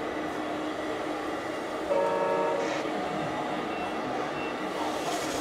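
A single short horn toot, under a second long, about two seconds in, over a steady mechanical hum.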